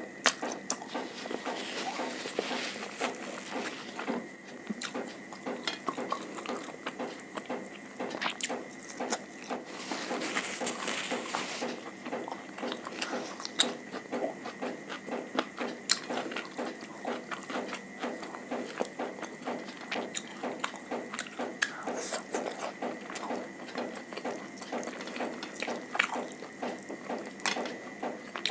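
Close-miked eating sounds: wet mouth clicks and crackly chewing throughout, with two louder hissy stretches, about two seconds in and again about ten seconds in.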